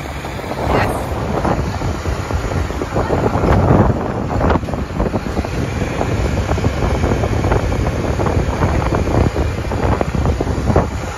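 Wind buffeting the microphone of a phone held up on a moving motorbike: a loud, gusty rush that swells and dips, with road and bike noise underneath.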